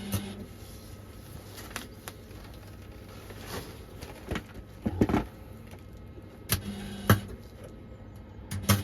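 Welding machine humming, with a few scattered knocks and clanks of metal during welding work on a steel campervan side step.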